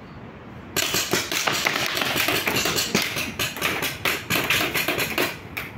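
Rapid paintball fire: a fast run of sharp pops, several a second, that starts about a second in, goes on for about five seconds and stops near the end.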